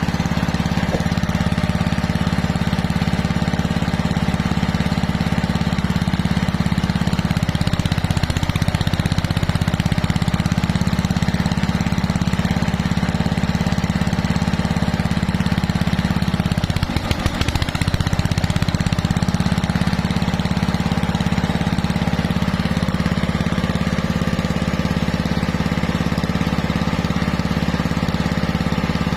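Air compressor running steadily with a low mechanical drone. About two-thirds of the way through it falters briefly for a second, then carries on.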